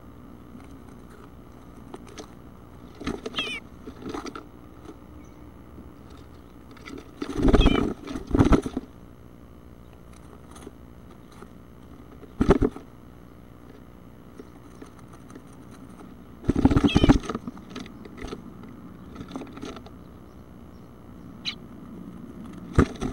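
Bluebird nestlings moving inside a wooden nest box: bursts of scratching and thumping against the box, the loudest about 7 and 17 seconds in, with a sharp knock about 12 seconds in. A few short, high, falling chirps come between them.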